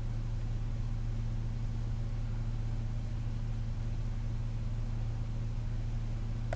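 Vehicle engine idling, a steady low hum heard from inside the cabin.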